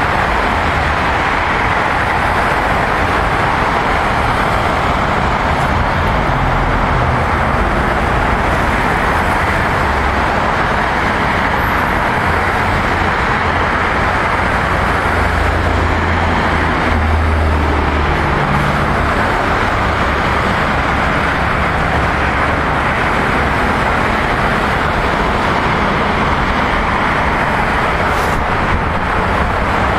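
Steady road traffic noise: a continuous hiss of passing tyres, with a low rumble that swells and fades, most strongly about halfway through.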